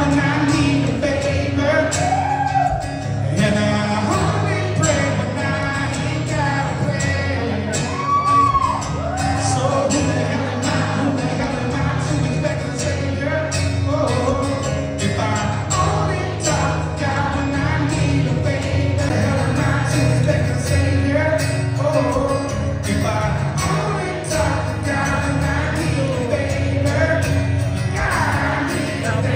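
A man singing a country song into a microphone, backed by a strummed acoustic guitar, played live through a hall's sound system and picked up from the audience seats.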